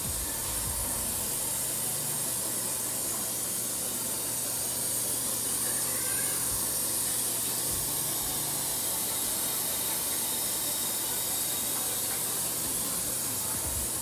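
RCA 2.0 portable washing machine running: a steady low hum under a continuous hiss of running water, unchanging throughout.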